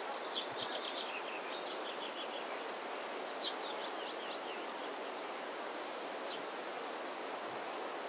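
Steady wind noise on the microphone, with small birds faintly singing short high phrases now and then over it.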